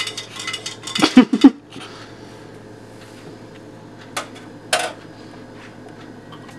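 A short, loud burst of a person's voice without words about a second in, then a low steady hum broken by two sharp knocks of kitchenware at the sink.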